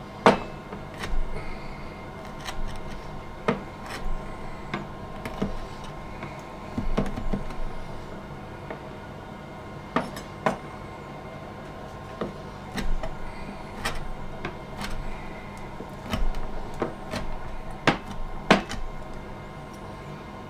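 Knife chopping chorizo sausage on a chopping board: irregular sharp knocks of the blade striking the board, some much louder than others.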